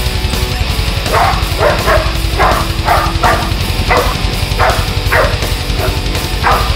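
Protection-trained dog barking repeatedly, about a dozen sharp barks starting about a second in, over loud background music.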